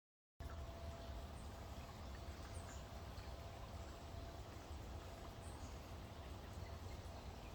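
Outdoor ambience cutting in about half a second in: a steady low rumble with faint, scattered high bird chirps.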